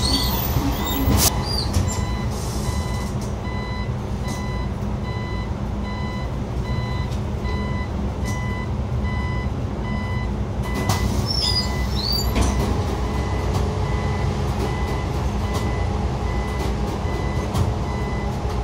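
Xiamen King Long hybrid city bus running, with a steady low rumble under a regular run of short electronic beeps. Brief high squeals come near the start and again about eleven to twelve seconds in.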